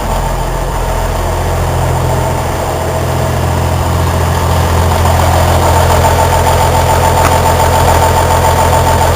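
Cummins N14 inline-six diesel idling steadily, warmed up to about 180 degrees with its new thermostat open. A steady higher whine joins the idle a little after halfway through.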